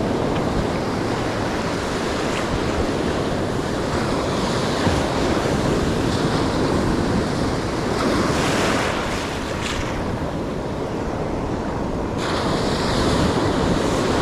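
Pacific surf breaking and washing up the sand, a steady rush that swells as a wave surges about eight seconds in, with wind buffeting the microphone.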